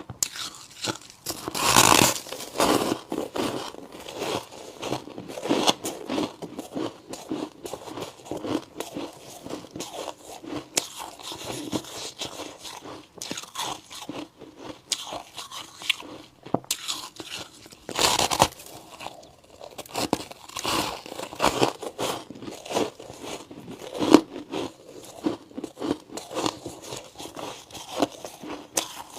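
Close-up crunching of ice chunks being bitten and chewed, with loud bites about two seconds in and again near eighteen seconds, and steady irregular crunching between them.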